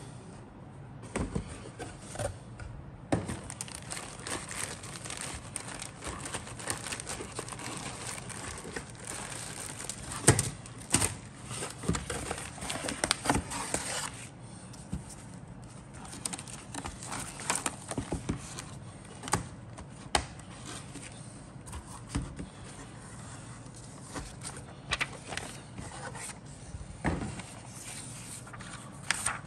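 Cardboard box, paper instruction sheets and plastic parts bags being handled: rustling and crinkling with small knocks and clicks, busiest in the first half and sparser after about 14 seconds.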